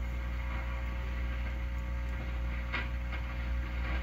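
A vintage tube radio gives off a steady low mains hum. A faint click comes about three seconds in.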